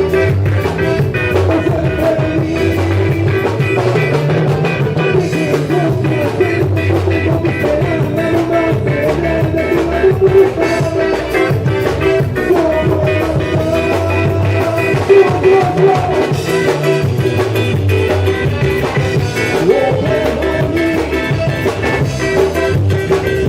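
Band music from a Spanish-language song, playing steadily.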